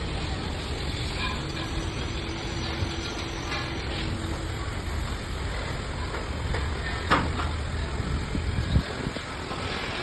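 A heavy diesel engine running steadily with a low rumble, with two sharp metallic knocks in the second half.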